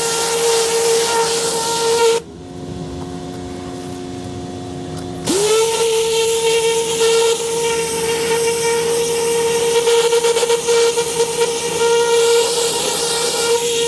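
Motor-driven cleaning machine running with a steady whine over a rushing hiss. It cuts out about two seconds in, then spins back up with a quick rising whine about five seconds in and runs on steadily.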